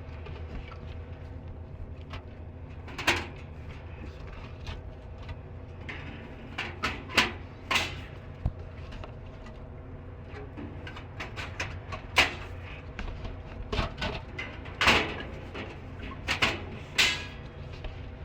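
Aluminium soda cans knocking and clanking as they are loaded by hand into a drink vending machine's columns, a scatter of sharp knocks in small clusters over a steady low hum.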